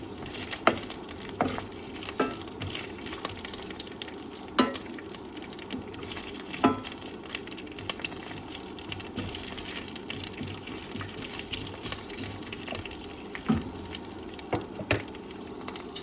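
Asparagus frying in a pan: a steady sizzle, with sharp clacks of a utensil against the pan every few seconds.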